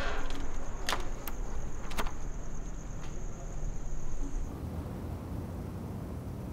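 Night ambience of a cricket's steady high trill with a few sharp clicks and rustles. About four and a half seconds in, the trill cuts off and gives way to a low, even hum of city traffic.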